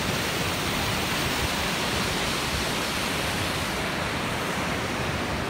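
Steady rushing noise of a large waterfall, Vernal Fall, heard from its top.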